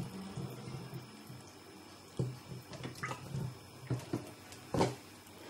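Extra virgin olive oil poured from a bottle onto grated carrot in a pan: a thin trickle with several short drips and glugs.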